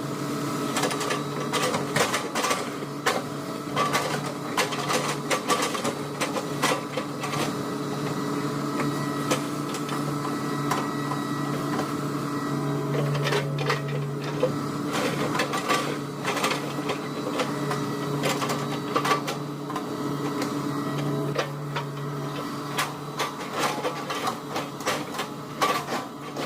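Hitachi excavator's engine running steadily, with the hum swelling under load a couple of times, amid a constant stream of sharp clacks and knocks from chipping oil palm trunks.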